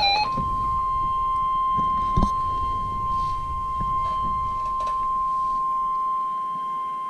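NOAA Weather Radio 1050 Hz warning alarm tone: a single steady high tone that begins a moment in, right after the SAME data burst ends, and holds unchanged over a low background hiss. It signals that a warning message is about to be broadcast.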